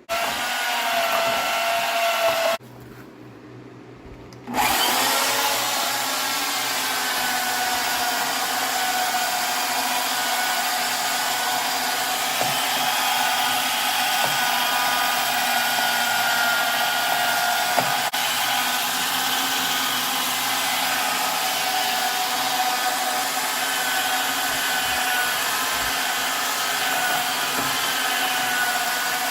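An electric motor runs loudly and steadily, stops about two and a half seconds in, then starts again about four and a half seconds in, rising in pitch as it spins up, and runs on at a steady speed.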